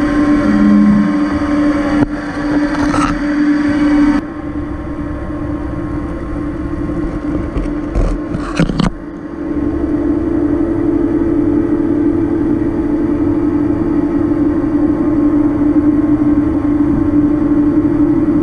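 FPT LEM 935 bed-type milling machine running under power with a steady mechanical hum as its milling head travels. The hum changes character about two and four seconds in, and a quick cluster of knocks comes about eight seconds in, before the hum settles steady again.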